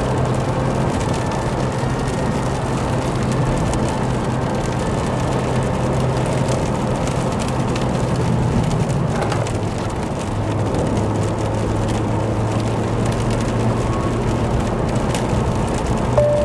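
Vauxhall Corsa driving on a wet road: a steady low engine hum under a haze of tyre and road noise, with rain on the car. The engine note drops about ten seconds in.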